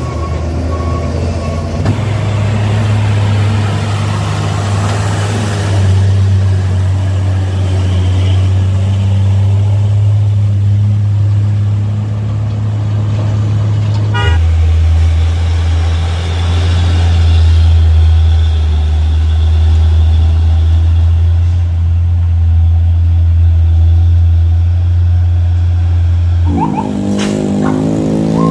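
Heavy diesel truck engines running in low gear round a steep hairpin bend, a deep steady drone that jumps in pitch about halfway through as the shot changes to another truck. Near the end a higher wavering tone joins in, like a vehicle horn.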